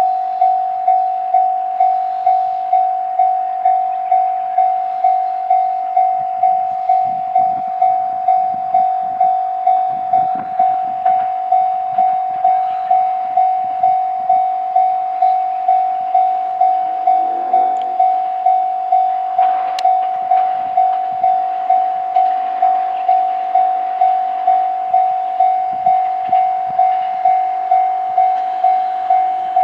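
Japanese level crossing warning bell ringing steadily at about one and a half strokes a second while an E501 series electric train passes over the crossing, its wheels clicking over rail joints at times.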